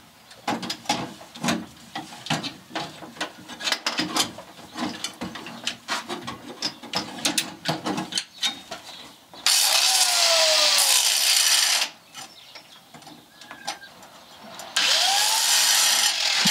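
Metal tools clattering and knocking as an angle grinder is worked into a tight spot, then the grinder running in two bursts of about two seconds each, the second near the end. Its pitch falls during the first burst. It is grinding down a seized, rounded-off engine-mount bolt.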